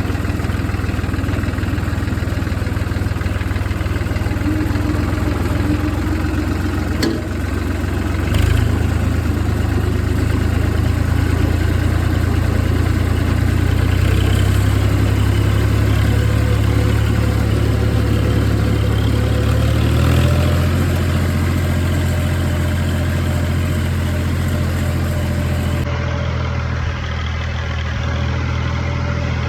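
Farm tractor engine running steadily, heard up close from the tractor. Its speed shifts a few times, with a couple of sharp clicks or clanks about 7 and 8 seconds in.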